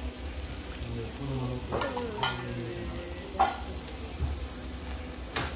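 Yakisoba noodles sizzling on a hot flat iron griddle while metal spatulas scrape and toss them against the plate, with a few sharper scrapes and clacks scattered through.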